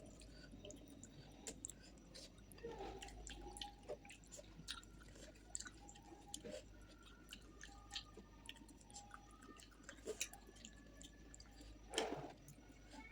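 Close-up wet chewing and mouth clicks of someone eating fish curry with rice, irregular and soft, with one louder smack near the end.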